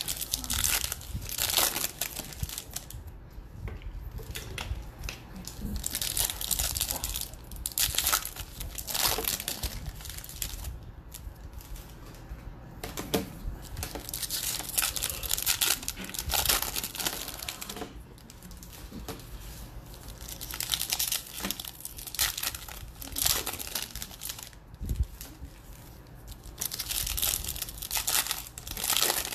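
Trading-card pack wrappers being torn open and crinkled by hand, in repeated irregular bursts with short pauses between.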